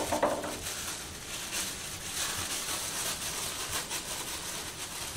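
Thin clear plastic glove full of expanding foam crinkling and rustling as it is squeezed and handled, in irregular small crackles.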